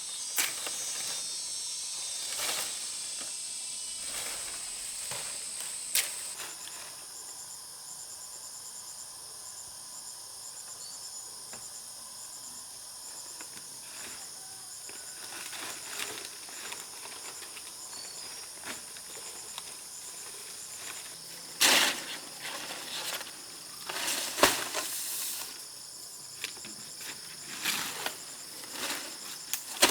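Insects buzzing and chirping steadily, with a fast pulsing trill joining about six seconds in. Scattered sharp knocks and short scraping noises cut through, most of them in the second half.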